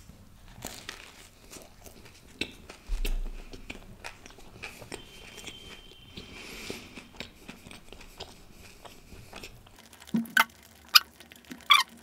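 A person biting into and chewing a paneer tikka sandwich close to the microphone: soft crunches and wet mouth clicks, with a few sharper clicks near the end.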